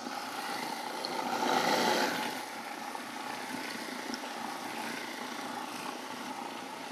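Food processor motor running steadily, blending a thick chickpea purée. It gets briefly louder between about one and two seconds in, then settles back to an even hum.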